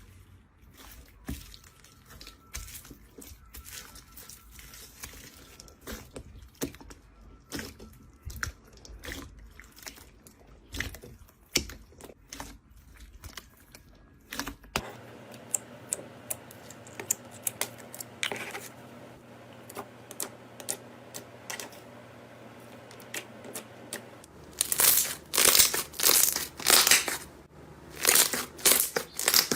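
Slime being played with, making many small sharp clicks and crackling pops. Near the end come loud, crunchy crackling bursts, several in quick succession.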